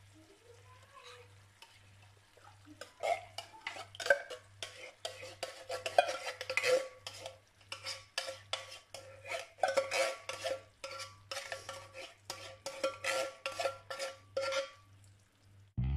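A metal spoon scraping and knocking inside a tin of coconut milk, scooping out the thick coconut cream. It comes as quick repeated scrapes with a ringing tin note and starts a few seconds in.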